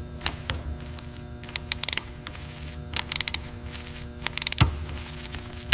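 Ratchet wrench clicking in short quick runs as a bolt is turned, several strokes in a row, over steady background music.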